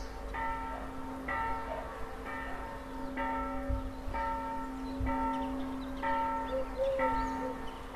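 Electric-motor-driven church bell ringing, striking about once a second with steady, even strokes.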